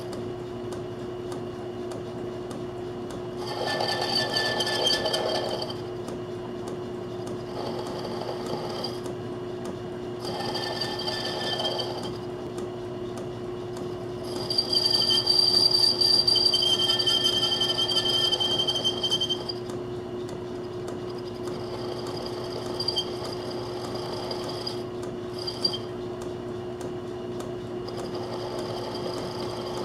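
Metal lathe running with a steady hum while a cutting bit is fed into a small spinning part, giving several bouts of high-pitched cutting noise. The longest and loudest bout comes about halfway through and lasts about five seconds. The bit has been chewing up on this cut.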